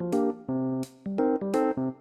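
Background music: chords on a piano or electric keyboard, struck in a steady rhythm with a light tick on each beat.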